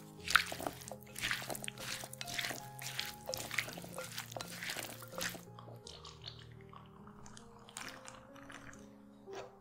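Chickpea and vegetable salad being tossed with a spatula in a glass bowl: moist scraping and clicking strokes, dense for about the first five seconds, then sparser, over background music.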